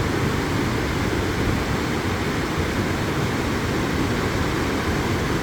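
Waterfall rushing steadily: an even, unbroken noise of falling water, heaviest in the low end.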